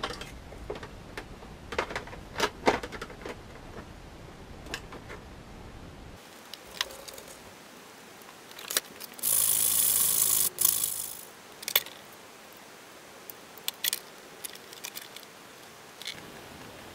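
Light clicks and taps of hard plastic as a stormtrooper helmet and its ear cap are handled and held together for fitting. Around the middle comes a louder rasping rub about a second and a half long.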